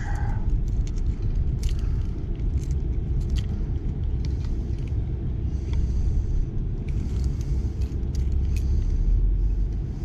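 Keys jingling and clicking against a padlock as a key is tried and does not open it, over a steady low rumble.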